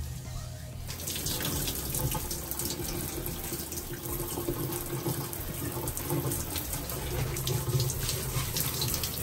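Shower water running and splashing onto a bathtub floor, starting about a second in.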